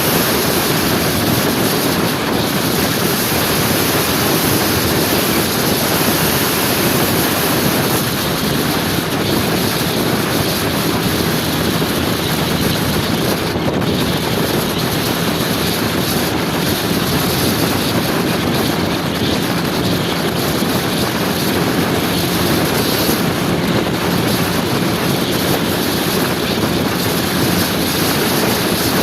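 Motor scooter riding at a steady speed: a constant engine drone under heavy wind noise on the microphone.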